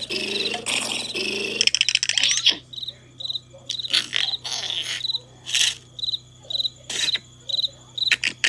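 Cartoon soundtrack: a cricket chirping in short, regularly repeating high bursts. A character's drawn-out, growly vocal noise runs for about the first second and a half, and short sudden noises are scattered through the rest.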